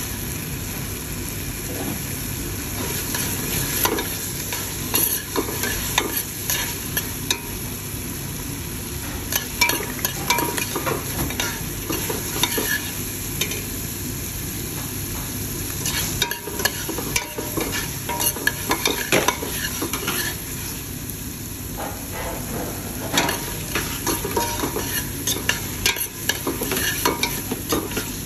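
Steel spoon stirring and scraping a tomato and ginger-garlic curry masala around a stainless steel pot, with irregular scrapes and clinks against the metal over the steady sizzle of the masala frying in oil.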